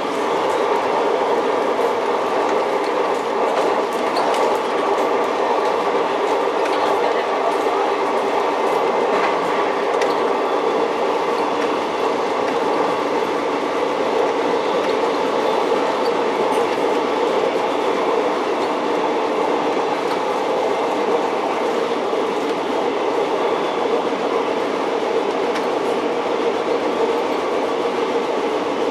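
'Tin Hare' rail motor running steadily along the line, a continuous drone of engine and wheels on rail with a few faint clicks from the track.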